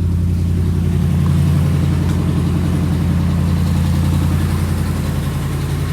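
2018 RAM pickup's engine idling steadily, running again after a shorted starter motor was replaced.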